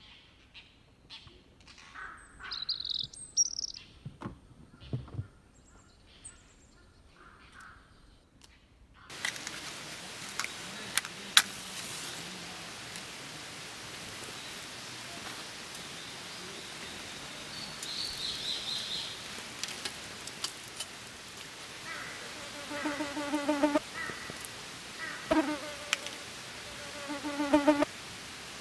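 A few faint clicks and short bird chirps over quiet, then after a sudden change a steady outdoor hiss. Near the end a flying insect buzzes close to the microphone in repeated short bursts.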